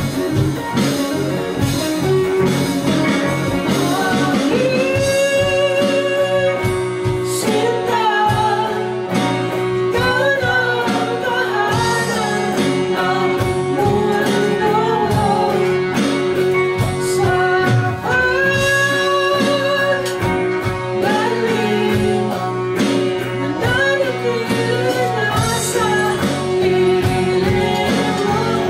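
Live band playing a song: a male lead vocal over guitars and a drum kit, amplified through the room's PA.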